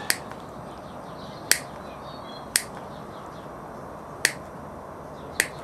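Side cutters snipping through vinyl piping: five short, sharp snips about a second apart, small relief cuts that let the piping bend round a curved corner.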